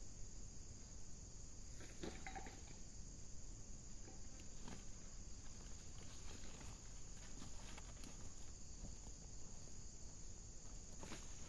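Insects chirring in a steady high-pitched chorus, with scattered soft clicks and rustles over a low rumble.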